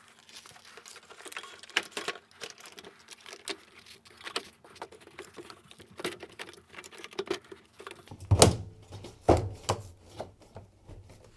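Plastic clicking, scraping and rattling as a tumble dryer's plastic outer ring assembly is worked onto its hooks in the chassis, with two louder knocks about a second apart late on.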